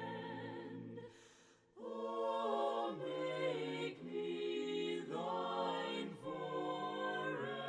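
An a cappella hymn sung by several voices in harmony, holding long notes that change together every second or so, with a brief break about a second in.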